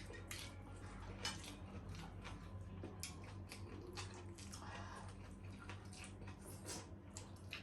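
Close-up eating sounds: chewing and wet mouth noises, with many short, irregular clicks and taps, over a steady low hum.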